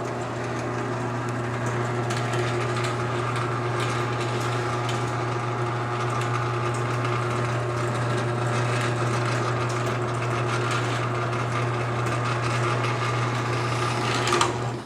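2003 LiftMaster chain-drive garage door opener with a half-horsepower AC motor running under load as it moves the door, a steady hum with a strong low tone. It stops abruptly near the end, after peaking at 71 decibels on a meter about 8 feet away.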